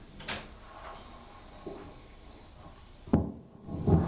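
Handling noise from a handheld microphone held close to the mouth: a soft click under a second in, a sudden knock about three seconds in, and a low rumble near the end.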